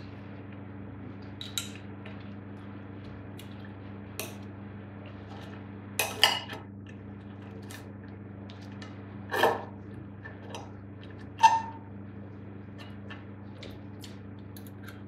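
Knife and fork scraping and clinking on a ceramic plate while cutting bacon and sausage, with scattered small clicks and three louder scrapes about six, nine and eleven and a half seconds in, over a steady low hum.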